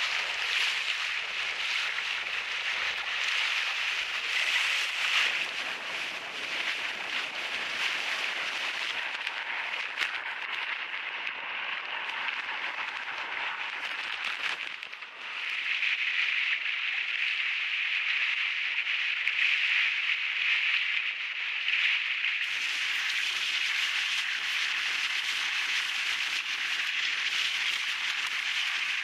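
Water rushing and spray hissing past a kayak moving fast under kite power, with crackling splashes. The tone shifts abruptly a few times.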